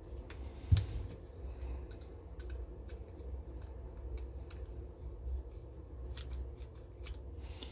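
Small metal clicks and taps of a screwdriver working on a padlock during disassembly, with one sharper knock a little under a second in.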